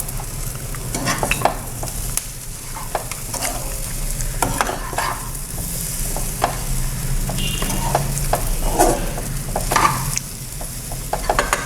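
A spatula stirring and scraping crumbly wheat-dough and lentil usili in a pan as it fries in ghee. There is a light, steady sizzle, with irregular scrapes and taps of the spatula against the pan.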